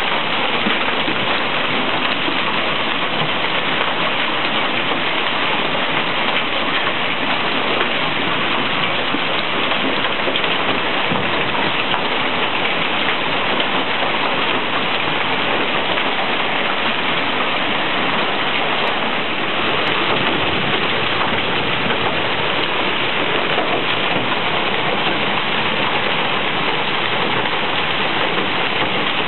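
Hail mixed with heavy rain pelting the street, pavement and parked cars: a dense, steady hiss of falling stones and water.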